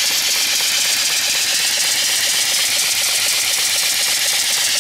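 Antique-style reproduction steam engine (2.75-inch bore, 3-inch stroke) running steadily with a constant hiss, driving an alternator by V-belt to charge a 12-volt battery.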